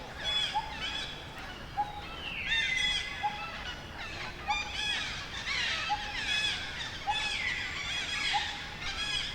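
Forest birds calling: a chorus of overlapping chirps and trills, with a short low whistled note repeating about once a second.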